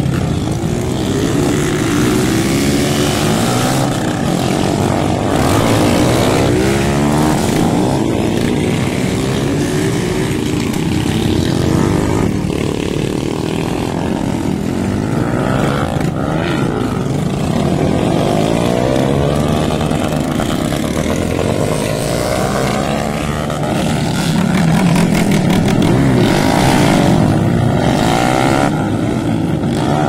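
Several small street motorcycles revving and accelerating past, their overlapping engine notes rising and falling as riders lift into wheelies.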